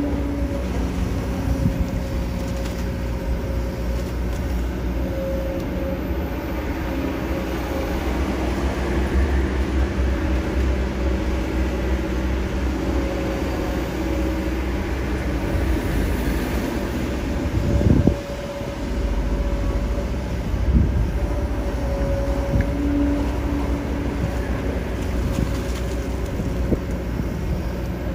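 Kobelco SK200 hydraulic excavator's diesel engine running steadily under load as the machine digs mud and swings to load a dump truck, with a low rumble and held tones that shift in pitch as it works. A single heavy thud stands out about two-thirds of the way through.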